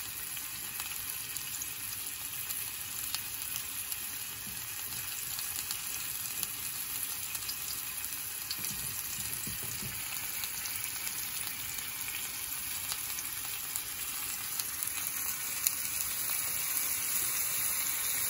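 Skewered paneer seekh kebabs sizzling in oil on a grill pan, a steady hiss.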